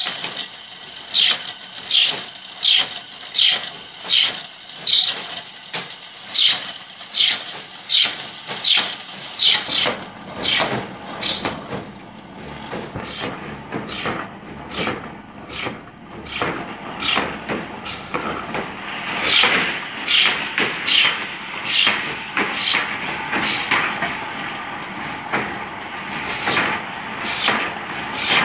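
Drilling machine boring holes into PVC pipe, each plunge a short sharp burst of noise, repeating about every three-quarters of a second and coming faster and more run-together after about ten seconds in.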